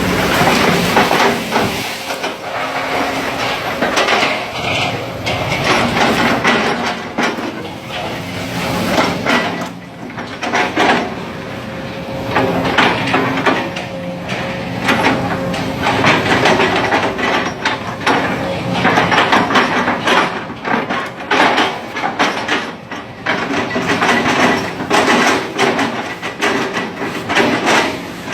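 Sumitomo SH130 hydraulic excavator at work: its diesel engine runs steadily under load, with repeated irregular metal clanks and knocks from the machine.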